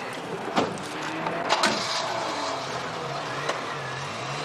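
Car doors slamming shut twice, about half a second and a second and a half in, with the car's engine running steadily under them.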